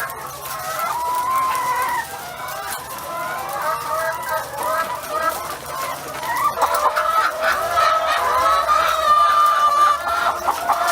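Several domestic hens clucking and calling over one another. The calls get louder and busier about six and a half seconds in.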